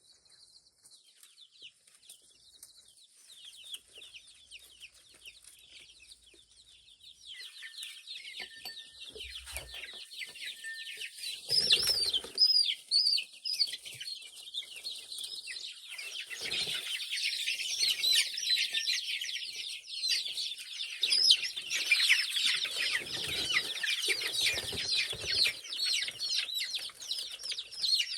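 A flock of chickens clucking and squawking, faint at first and growing loud and agitated about a third of the way in, with wings flapping, as the birds are caught by hand.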